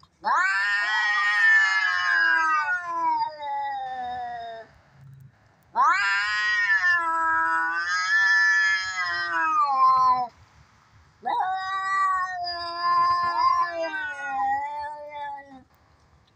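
Domestic cat caterwauling in a fight: three long, drawn-out yowls, each about four seconds, wavering up and down in pitch, with short pauses between them.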